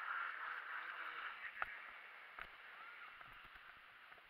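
Radio-controlled speed boat's motor running, fading steadily as the boat draws away across the water. A single sharp click about a second and a half in.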